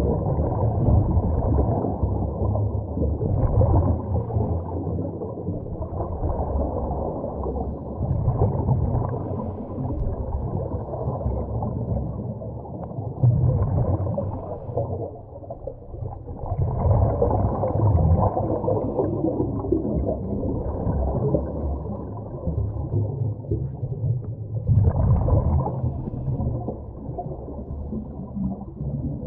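A scuba diver's regulator breathing, heard muffled through an underwater camera housing: a swell of bubbling exhaled air every three to four seconds over a steady low rumble.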